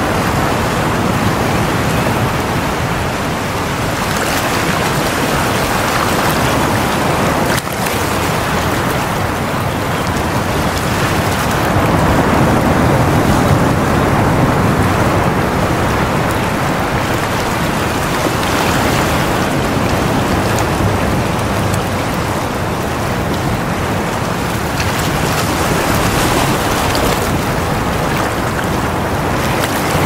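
Sea surf: waves breaking and washing ashore in a continuous rush that swells and eases, a little louder about halfway through.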